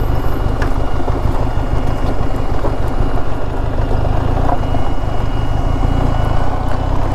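Benelli TRK 502 motorcycle's parallel-twin engine running steadily with a dense low rumble, with no revving.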